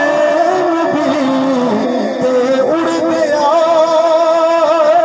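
A man singing a Punjabi naat (devotional song) in long held, wavering notes, amplified through a microphone and PA loudspeaker.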